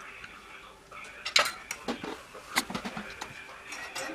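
Metal fork and knife clinking and scraping against a wooden bowl, with two sharp clinks, the louder about a second and a half in, and a few dull knocks as the bowl is handled.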